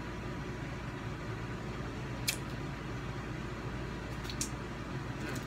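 Steady low hum of room noise, with one sharp click about two seconds in and a couple of fainter clicks about four seconds in.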